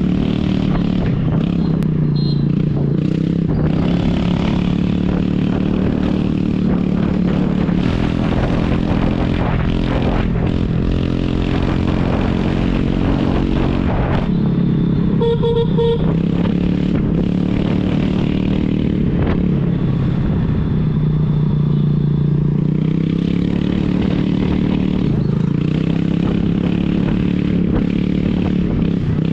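Aprilia 125 scooter's single-cylinder engine running loud through an opened-up silencer while riding, its pitch rising and falling with the throttle. A vehicle horn honks briefly about halfway through.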